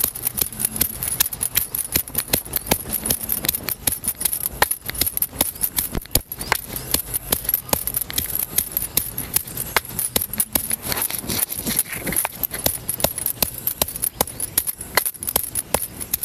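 Stone pestle pounding in a stone mortar, rapid repeated strikes crushing green chillies, garlic and ginger into a wet chutney paste, with the bangles on the pounding wrist jingling at each stroke.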